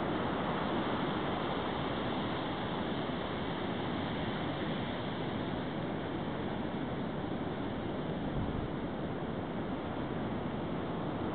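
Steady rush of ocean surf on a sandy beach, mixed with wind on the microphone.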